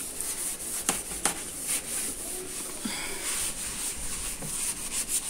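Kitchen sponge scrubbing the top of a refrigerator: soft rubbing, with a couple of light taps about a second in.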